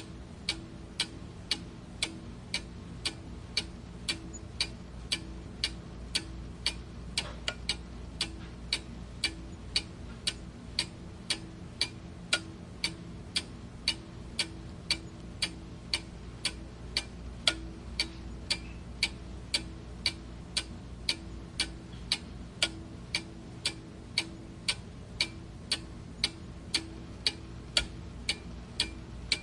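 Clock ticking steadily, about two even ticks a second, over a faint low hum.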